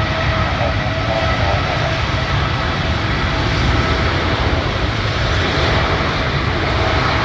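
Boeing 787-8 Dreamliner's twin turbofan engines at takeoff power as the jet accelerates down the runway on its takeoff roll: a steady, loud jet engine noise with a few faint high tones that fade away.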